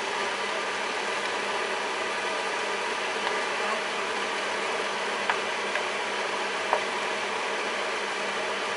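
A steady, even hiss of stovetop cooking, with a few light taps of a spatula against a nonstick frying pan as a creamy mushroom sauce is stirred.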